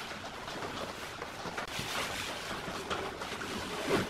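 Hands rubbing and pressing adhesive wood-grain vinyl film onto a wooden speaker cabinet: a dry swishing and rustling, with a short sharper knock near the end.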